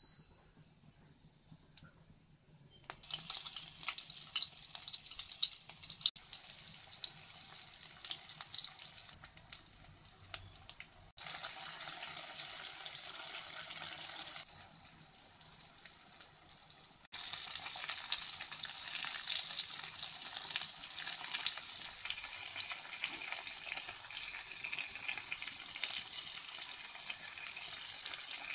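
Spices and vegetables frying in hot oil in a pan: a steady hissing sizzle that starts about three seconds in, with sudden jumps in level a few times.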